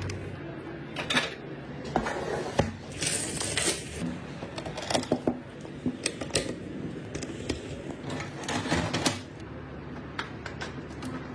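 Irregular clicks, taps and knocks of plastic and metal computer parts being handled and fitted together during a PC assembly, with a short rustle about three seconds in.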